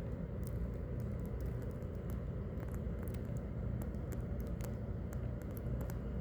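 Steady low background rumble, like room or machine hum, with faint scattered clicks and ticks on top.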